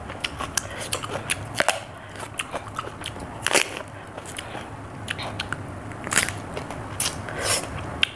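Crisp crunching and chewing of raw cucumber: many small sharp snaps, with several louder bites in the second half, and the skin being torn off by hand.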